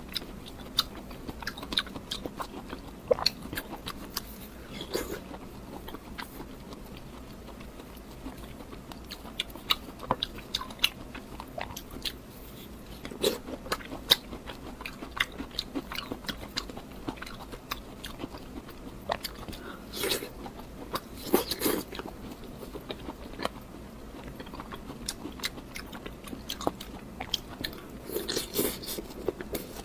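Close-miked mukbang eating: irregular bites and chewing made up of scattered sharp clicks, with denser clusters about two-thirds of the way through and again near the end.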